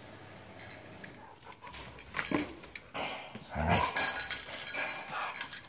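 Siberian huskies, an adult and a puppy, vocalizing in rough play: a short call about two seconds in and a longer, louder low call about three and a half seconds in, with a weaker one near the end.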